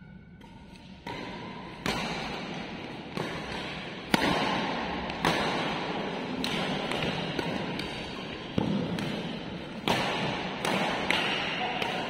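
Badminton rackets striking a shuttlecock in a doubles rally, a sharp hit about once a second, each ringing on in the hall's reverberation.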